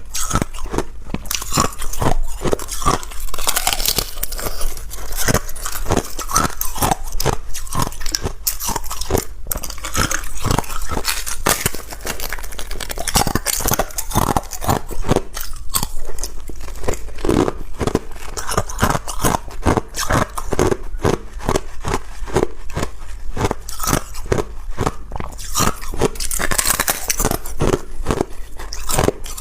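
Ice being bitten and chewed: a loud, fast, continuous run of sharp crunches.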